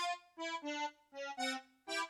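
Light background music: short, separate accordion-like notes in a bouncy melody, several a second with gaps between them.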